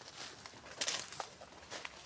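A person's footsteps on a farm path, about three steps, the loudest about a second in.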